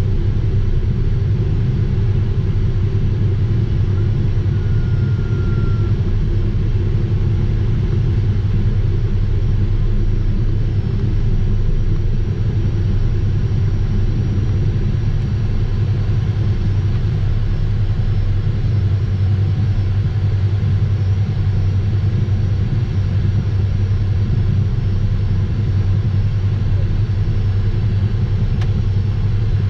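Steady cockpit noise of a Cessna Citation Mustang's two Pratt & Whitney PW615F turbofans running at low power while the jet taxis, a deep even hum that does not change.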